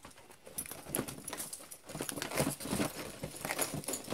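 Cardboard box being handled and opened by hand: irregular rustling, scraping and light knocks of the cardboard.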